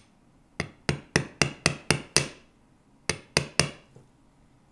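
A metal hammer tapping the balled tip of a sterling silver wire prong flat against a steel bench block. There is a quick run of seven taps, about four a second, then three more after a short pause, each with a brief metallic ring.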